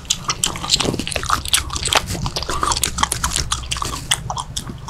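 A person chewing caffeinated mint gum with the mouth right at a clip-on microphone: a close, continuous run of wet, irregular clicks and smacks, several a second.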